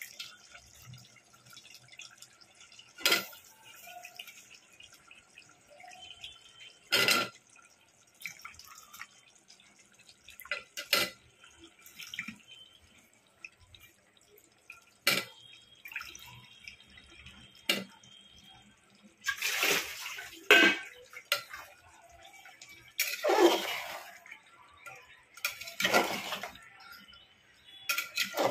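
Spatula knocking against a metal cooking pot every few seconds while the curry bubbles. Near the end come longer, louder wet scrapes and splashes as potato chunks are stirred into the sauce.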